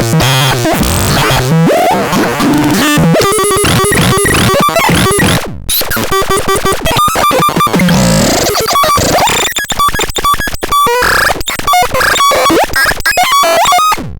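Synthesizer making harsh, noisy, chaotic tones. From about three seconds in it breaks into rapid chopped, stuttering bleeps that jump between a few pitches.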